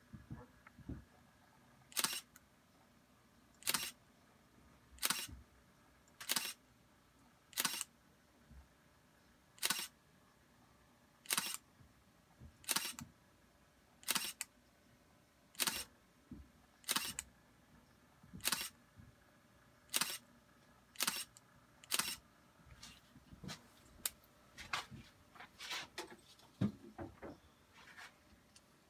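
Sharp single clicks repeating about every one and a half seconds, coming faster and unevenly over the last several seconds, with a soft low knock near the end.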